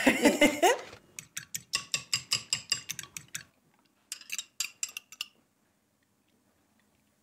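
Rapid light clicking of a utensil against a glass mixing bowl, about six clicks a second for a couple of seconds, then a shorter run about a second later.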